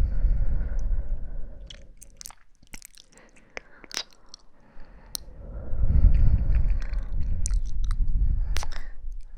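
Close-miked ASMR trigger sounds: breath blown onto the microphone as a low rushing noise, twice, with a stretch of small crackling clicks in the quieter gap between.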